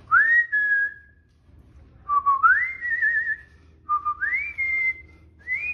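A person whistling to call a puppy: four whistled notes, each sliding up from a lower pitch and then held, one with a wavering warble, the last running on past the end.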